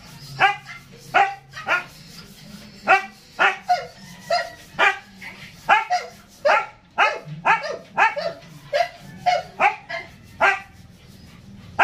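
A dog barking repeatedly: about twenty short, sharp barks at roughly two a second.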